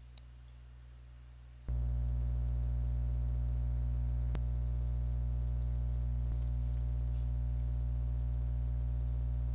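Steady low electrical hum with a buzzy edge. It starts suddenly about two seconds in, after a faint hum, and holds unchanged, with a faint click or two.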